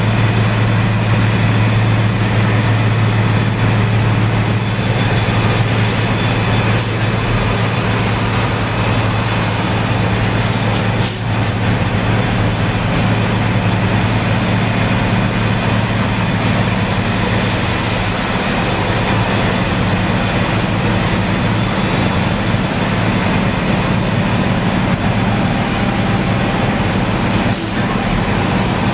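Heavy asphalt milling machine working, its diesel engine running with a steady low hum under loud, continuous machine noise. There are a few brief knocks and clanks now and then.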